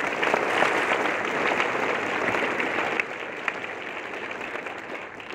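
Audience applauding, loudest at first and dying away gradually.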